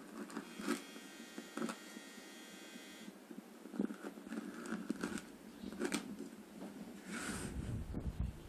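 Light knocks, taps and scrapes of a plastic knife cutting through firm no-bake oat bars and striking a plastic container. A thin steady whine runs for about two and a half seconds early on, and a brief low rumble comes about seven seconds in.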